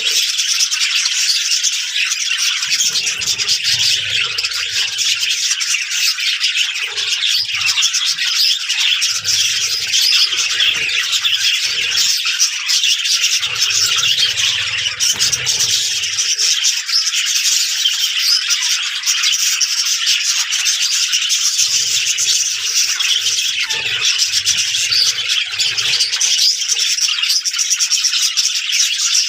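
Budgerigars chattering and warbling without a break, a dense, high-pitched mass of calls.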